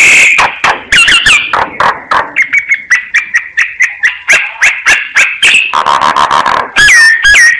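Myna singing: a fast, continuous run of clicks and chattering notes mixed with short whistled slurs, with harsh rasping calls at the start and again near the end.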